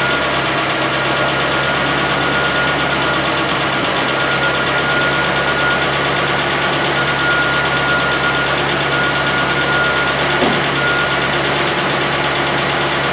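Nissan Z24S 2.4-litre four-cylinder petrol engine idling steadily on new rod bearings, with a ticking from the top end that the owner puts down to an exhaust valve.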